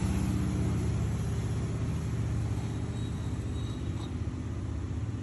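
A steady low rumble with a droning hum.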